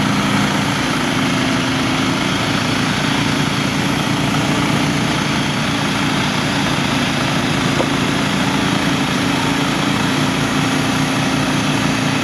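Norwood Frontier OS-27 manual bandsaw mill's small gasoline engine running steadily at speed while the saw head is pushed along a log, the band blade cutting through the wood.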